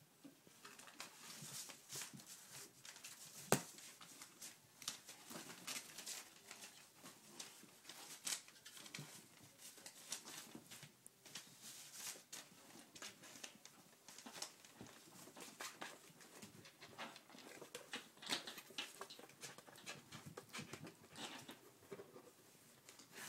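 Kittens scrambling over a fabric backpack and around newspapers: faint, irregular rustling, scratching and light patter, with one sharper knock about three and a half seconds in.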